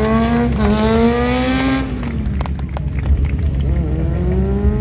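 Stunt motorcycle's engine revving in a long rising pull that drops off about two seconds in, then climbs again near the end.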